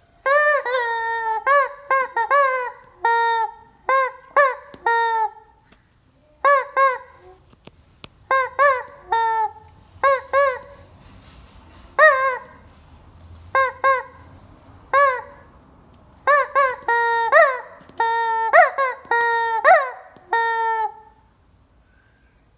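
Rubber squeaky chicken toy squeezed again and again, each squeeze giving a short pitched squeal that slides up and back down, some in quick runs and a few held longer. The squeals stop near the end.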